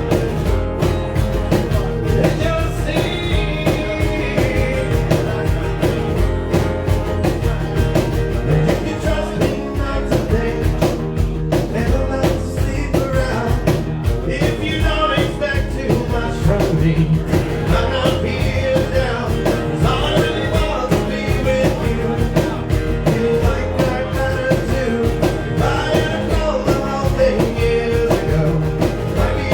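Live rock band playing, with a steady drum beat under guitars and a singer's voice coming in and out.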